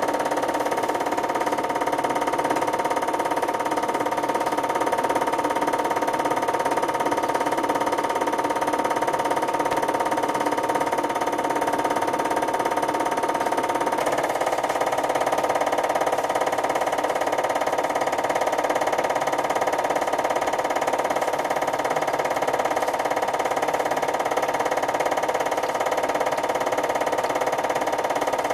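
Steady background music of held, droning tones with no clear beat, shifting to a different chord about halfway through.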